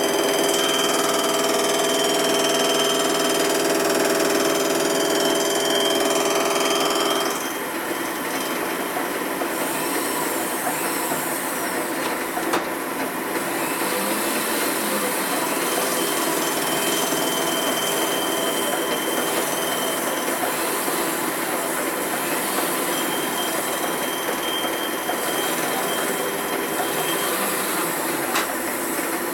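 A metalworking machine tool running and cutting metal: a steady whine of several tones that, about seven seconds in, gives way to a quieter, rougher cutting noise.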